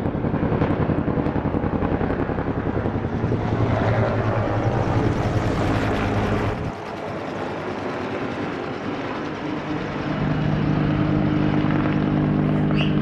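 Firefighting helicopter flying overhead, its rotor blades chopping in a fast, even beat. About halfway through the beat drops away suddenly and a steadier drone takes over.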